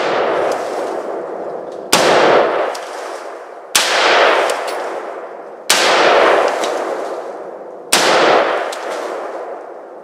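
Ruger AR-556 semi-automatic rifle, chambered in 5.56 NATO, firing single shots about every two seconds, four in all. Each sharp crack is followed by a long echo that dies away before the next shot.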